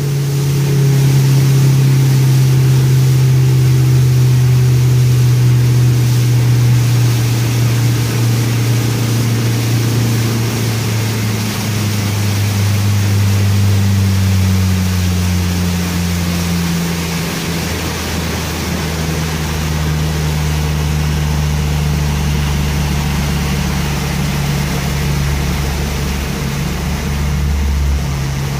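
Motorboat engine running at cruising speed and then throttled back, its pitch falling slowly and steadily as the boat slows from about 28 mph to about 7 mph, over a steady hiss.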